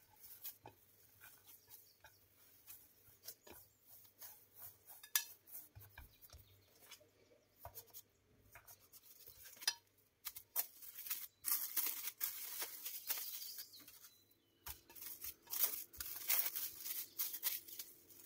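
Hands working dough on a ceramic plate with light taps, clicks and scrapes against the glaze, followed by plastic cling film crinkling as the dough is wrapped and divided, the crackling coming in dense bursts in the second half.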